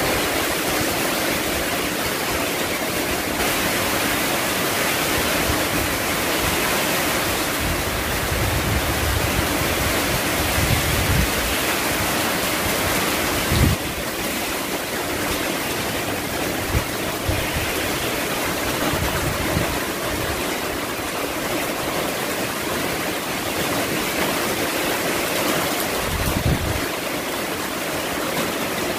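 Heavy typhoon rain pouring down, a steady dense hiss. Gusts of wind buffet the microphone with low rumbles a few times in the middle and near the end, and there is one short knock about halfway through.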